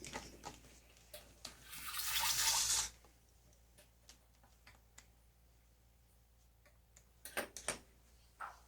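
Sharp clicks and taps of small hard parts being handled while a laptop is worked on. About two seconds in comes a hiss lasting just over a second, and about seven seconds in a quick cluster of clicks.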